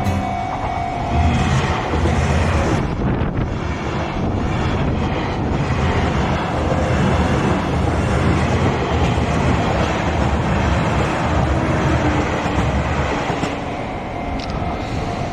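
Sotetsu Main Line train passing close by: a loud, steady rolling noise that lasts the whole fifteen seconds.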